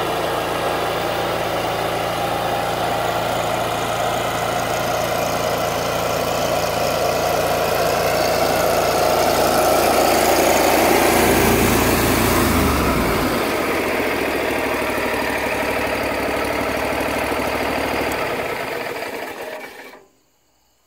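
John Deere Z710A zero-turn mower's Kohler Command engine running steadily, a little louder around the middle, then shut off near the end and winding down to silence.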